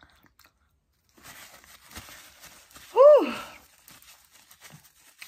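Paper napkin rustling as hands are wiped clean, with a short, loud voiced exclamation about three seconds in whose pitch rises and then falls.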